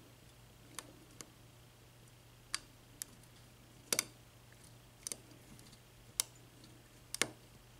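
Faint, irregular clicks from a small lock pick working the pins of a Kasp 14040 padlock during single-pin picking, some coming in quick pairs: pins being lifted and setting, with the lock in a false set.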